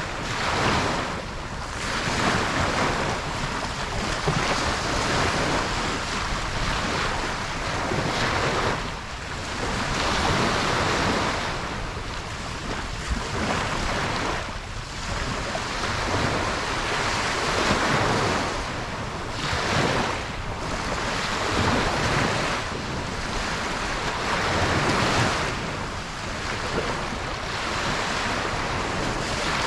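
Ocean waves breaking and washing on a beach, a steady rush of surf that swells and ebbs every few seconds. Some wind noise on the microphone.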